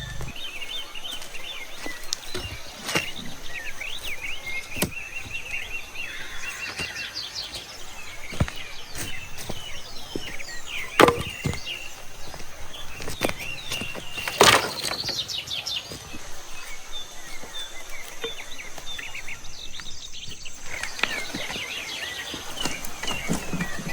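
Occasional sharp wooden knocks and cracks, the loudest about 11 and 14 seconds in, over birds chirping and a steady high insect drone.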